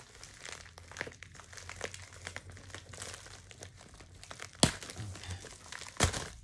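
Packaging being handled and crinkled while a subscription kit is unwrapped, a run of small crackles and rustles, with two sharp knocks about four and a half and six seconds in.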